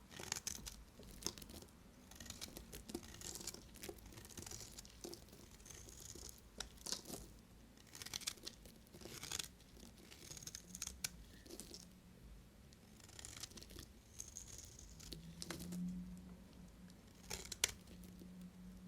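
Knife cutting through dry bar soap: a run of short, crisp scraping cuts with brief pauses between them.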